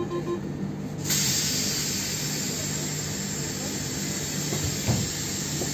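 Inside a train standing at a station: a repeating beep stops at the very start, then about a second in a loud, steady hiss of compressed air from the train's pneumatic system starts and keeps going over the train's low, steady hum.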